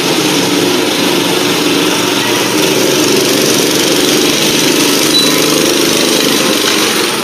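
Several small go-kart engines idling together in a steady drone, while one kart pulls away from the line.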